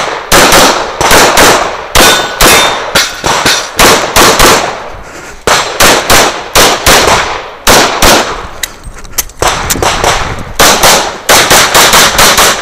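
Semi-automatic competition pistol fired in fast strings of shots, many of them quick pairs, very loud from the shooter's position, with steel targets clanging when hit. The strings are broken by a few short lulls.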